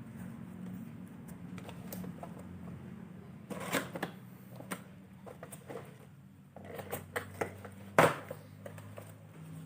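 Scattered clicks and rustles of hands handling a boxed keyboard-and-mouse set and its packaging, with one sharp knock about eight seconds in, over a low steady hum.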